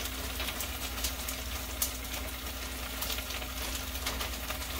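Chicken browning in a pan on the stove, sizzling with a steady stream of fine crackles, over a low steady hum.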